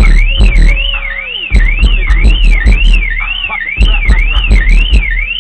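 Suzuki Vitara car alarm siren wailing up and down about twice a second, over loud pulsing deep bass from an Ascendant Audio Mayhem 18-inch subwoofer, with sharp cracking hits on the beats.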